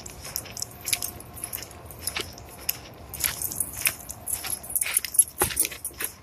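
Footsteps crunching on a dirt-and-gravel trail: an irregular run of crisp crunches and clicks, with one louder knock about five seconds in.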